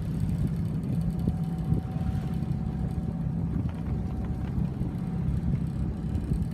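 Tall ship's engine running steadily under way, motoring in calm weather: an even low drone with a faint steady higher tone above it.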